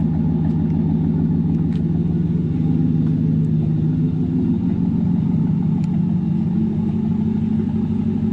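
2016 Chevrolet Silverado running through a newly installed Borla ATAK aftermarket exhaust, its exhaust note a steady low rumble.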